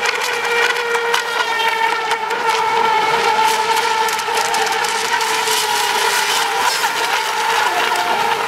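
Several electric radio-controlled racing boats of the Eco Expert Junior class running flat out, their motors giving a steady high whine in a few overlapping pitches that bend slightly as the boats pass.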